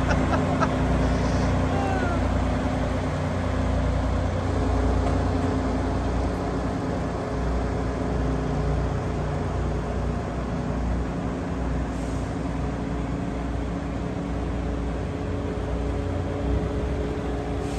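Kenworth T680 semi-truck's diesel engine running as the tractor pulls away across the lot, a steady low drone that slowly fades.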